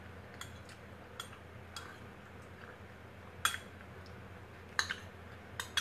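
Metal spoon clinking against a small ceramic bowl while eating, about seven separate light clinks, the loudest a little past the middle.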